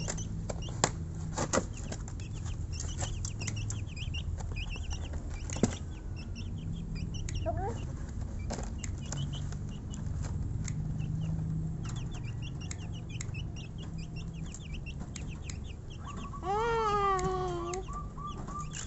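Naked-neck (ayam botak) chicks peeping in quick clusters of short high calls, over a low steady hum. About three-quarters of the way through comes a louder, drawn-out cry that falls in pitch.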